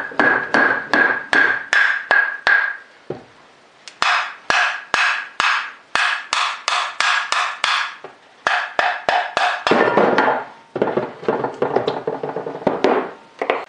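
Repeated mallet blows on the metal end housing of an old GE AC shunt motor, knocking the end bell off the rotor. The blows come at about two to three a second in several runs with short pauses, and each strike rings briefly.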